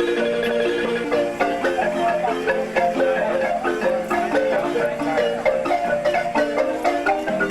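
Marimba music: a steady stream of quick struck notes with a lower part sounding underneath.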